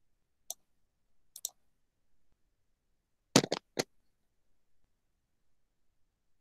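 Computer mouse clicking: a single sharp click about half a second in, a quick double click near one and a half seconds, then a louder rapid run of three or four clicks around three and a half seconds in.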